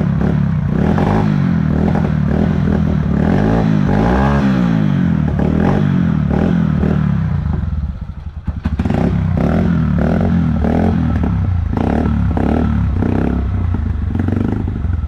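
Honda CG Fan's single-cylinder four-stroke engine running on half choke, revved up and down with the throttle. About eight seconds in it stumbles almost to a stall, then picks up and runs on before dying away near the end.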